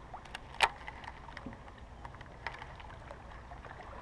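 Handling clicks from a baitcasting rod and reel: one sharp click about half a second in, then a few faint ticks, over a low steady rumble.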